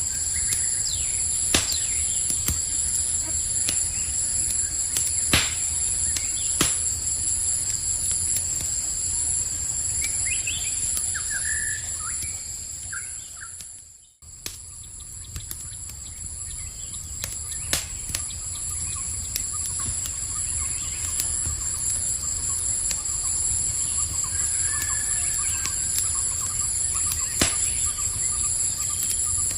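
Campfire crackling with scattered sharp pops and a low rumble, over the steady high chirring of crickets. A few short bird chirps come in the first half. Everything fades out briefly about halfway, then returns.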